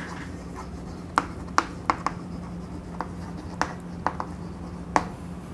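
Chalk writing on a blackboard: a string of irregular sharp taps and short scrapes as the letters are stroked out.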